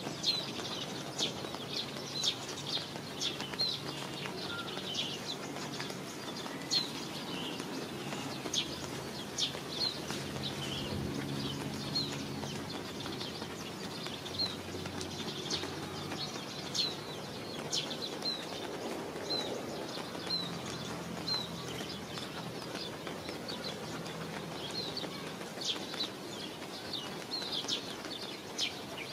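Steady rain falling, with short high chirps repeating about once a second over it.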